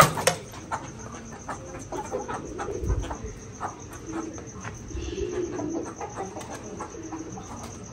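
Domestic pigeons cooing softly in the lofts, a low hoot repeating every second or so, with scattered light clicks and a sharp knock at the very start.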